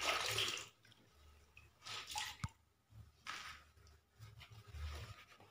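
A wet cloth being squeezed and handled: a few short, faint rustling bursts, with one sharp click about two and a half seconds in.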